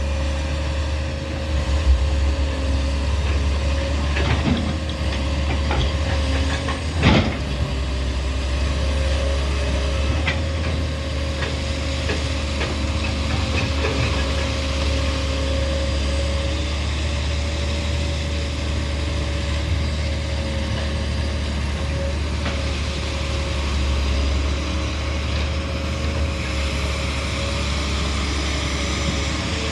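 Doosan 300-class excavator's diesel engine running steadily with a thin steady whine over the rumble. A sharp knock comes about four seconds in and a louder one about seven seconds in.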